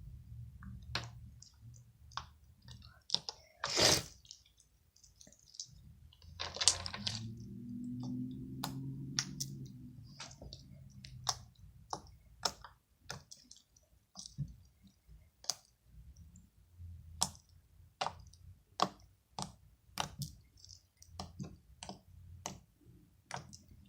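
Slime being stirred and worked with a wand, making irregular sharp clicks and wet pops as air pockets burst, a few louder squelches among them. A low hum comes in for a few seconds in the middle.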